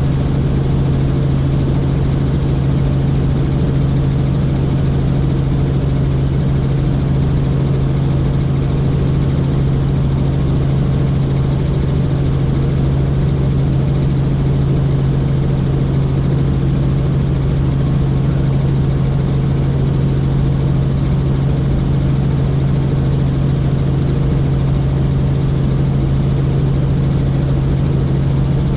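Helicopter in flight, its rotor and engine making a steady drone with a strong low hum that does not change.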